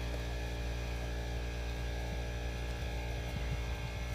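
Steady low hum of a running motor, constant in level throughout.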